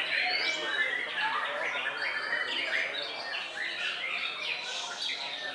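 White-rumped shamas (murai batu) singing, a dense tangle of overlapping chirps, trills and quick rising and falling whistles with no break, as of several birds singing at once.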